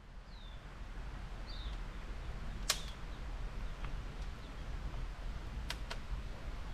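Forest evening ambience: a steady low rush of a nearby river, two short falling chirps from a bird in the first two seconds, and sharp pops from a wood fire in an outdoor stone fireplace, the loudest one about three seconds in and a quick pair near the end.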